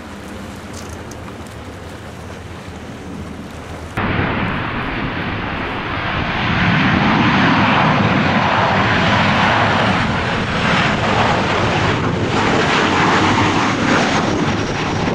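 Ryanair Boeing 737-800 jet airliner flying low on landing approach with gear down: a loud, steady jet-engine roar that swells about two seconds after it begins and stays loud. Before it, about four seconds of wind and sea noise at the shore, cut off abruptly.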